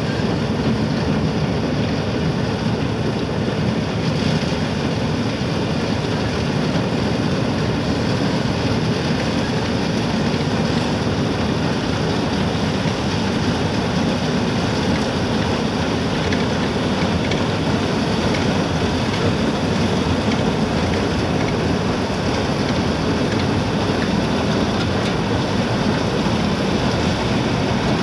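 Combine harvester running while reaping rice, its diesel engine and cutting and threshing machinery giving a loud, steady mechanical noise that does not change.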